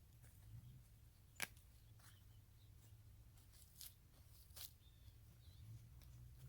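Near silence, with faint rustles and a few short clicks from hands digging through soil and old potato plant debris in a container. One sharper click comes about a second and a half in, over a low steady hum.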